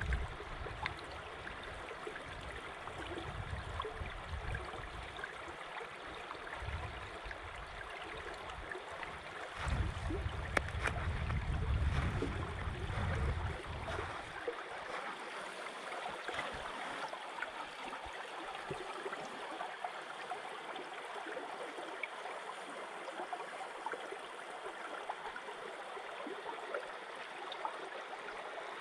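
Shallow river water flowing and trickling past the edges of shelf ice, a steady babbling. For the first half a low rumble sits under it, strongest about ten to fourteen seconds in.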